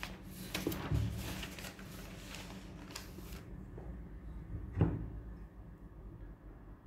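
Notebook paper rustling and handling noise as the page and the handheld recording phone are moved and set in place: a run of light rustles and clicks for about three and a half seconds, then a single soft knock about five seconds in.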